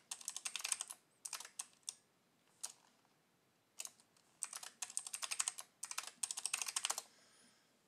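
Typing on a computer keyboard to enter a login password: several quick runs of keystrokes with short pauses between them, stopping about seven seconds in.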